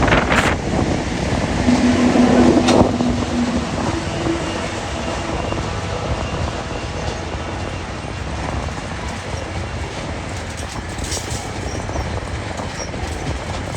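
Freight train rolling past: a steady rumble of wheels on rail, with a couple of sharp clicks in the first three seconds and a short steady tone, like a faint wheel squeal, about two seconds in.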